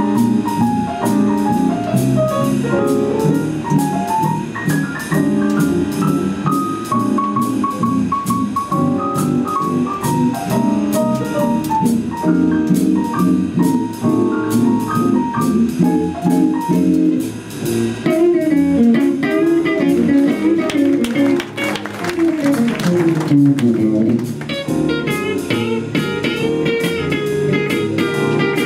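Student jazz stage band playing live: electric keyboard and electric guitar lines over bass and drum kit, with cymbals swelling a little past the middle.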